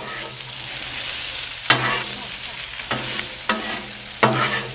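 German potato salad frying and sizzling on a Blackstone steel flat-top griddle while metal spatulas scrape through it, folding in flour. A few sharp clacks of the spatulas against the griddle stand out over the sizzle.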